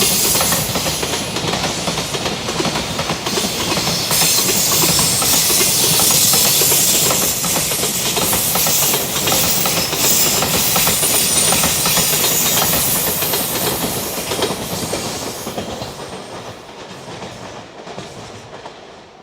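Train passing close by: wheels and rails clattering under a hiss, loud for most of its length, then fading away over the last few seconds as the train moves off.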